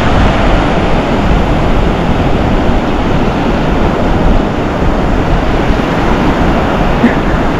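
Steady rush of wind on the microphone mixed with ocean surf washing up the beach, a continuous noise heaviest in the low end.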